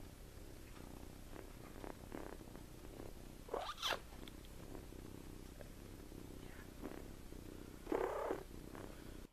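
Seven-week-old kitten snoring in its sleep: a steady, soft, low purr-like rumble. Two brief louder sounds break in, one about three and a half seconds in and one near eight seconds.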